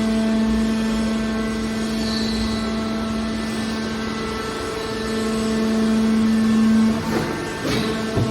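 Hydraulic metal baler's power unit running with a steady hum. The hum swells slightly, then drops away about seven seconds in, and a few sharp knocks follow near the end.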